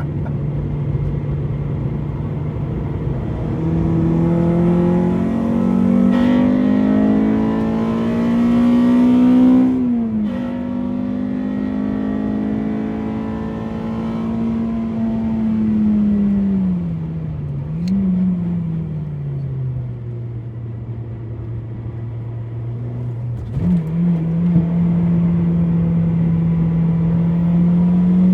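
Honda Civic EP3's K20A2 2.0-litre four-cylinder engine pulling hard under acceleration, with a sharp drop in revs at a gearshift about ten seconds in. Revs then hold before falling away from about fifteen seconds, with a brief rev blip partway down. About twenty-three seconds in the engine comes back up and climbs again near the end.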